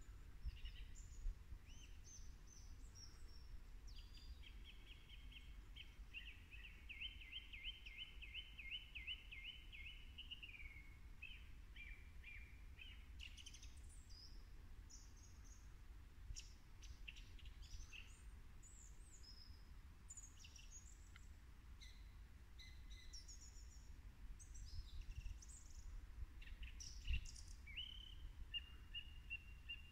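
Small songbirds singing and calling at dusk: scattered high chirps and phrases, with a run of quickly repeated notes a few seconds in. A faint, low, steady rumble lies underneath.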